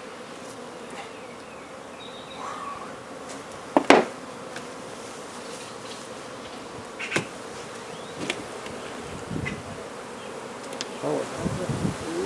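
Honey bees from a colony inside a wall, buzzing steadily. A sharp knock comes about four seconds in and another about seven seconds in.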